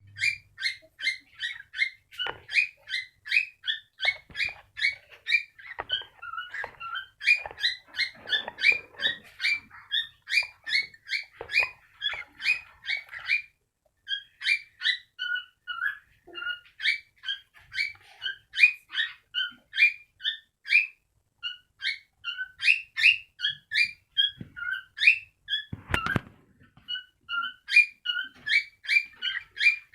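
Cockatiel chirping over and over, short, high, loud notes about three or four a second, with a brief pause midway. A single thump sounds a few seconds before the end.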